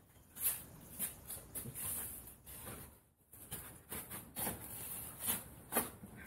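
Hands pressing and rubbing foam board along a glued kayak rim, making a run of short, irregular scuffs and creaks.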